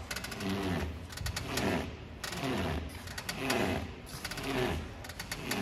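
Steering gear of a BYD Tang DM-p making its fault noise as the steering wheel is turned back and forth: a rattle of clicks with a creak that falls in pitch, repeating about once a second. The mechanic puts it down to the steering rack, which is found to be broken.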